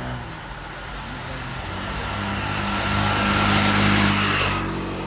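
Motorbike engine running at a low, steady speed as it rolls past close by, getting louder until about four seconds in.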